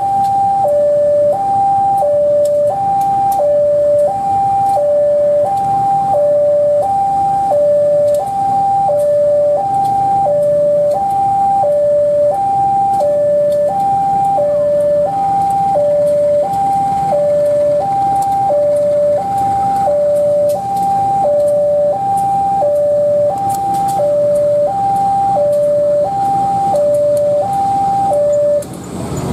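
Electronic two-tone level-crossing warning alarm, alternating a higher and a lower tone about once a second, with the low running of CC203 diesel-electric locomotives beneath. The alarm cuts off near the end.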